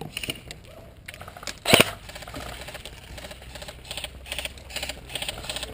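A few sharp clicks, then one loud knock about two seconds in, followed by a quick, even run of softer clicks.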